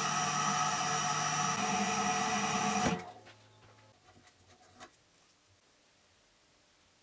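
Wood lathe running steadily with a whine of several held tones while a pen blank is buffed with polishing compound on a paper towel; it stops abruptly about three seconds in. A few faint clicks and taps follow as the blank is slid off the mandrel.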